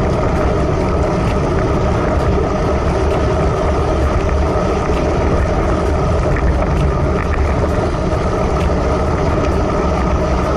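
Steady wind rushing over a handlebar-mounted camera's microphone on a road bike at about 28 km/h, mixed with the hiss of tyres on wet asphalt.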